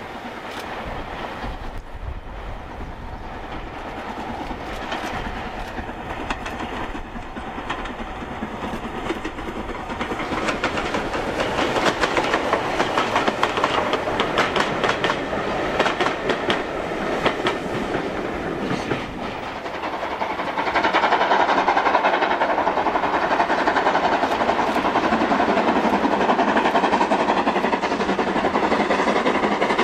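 Steam locomotive hauling a train of coaches past, growing louder, with rapid clattering of wheels over rail joints. About two-thirds of the way through, the sound changes abruptly to a steadier, louder rushing noise as another steam-hauled train approaches.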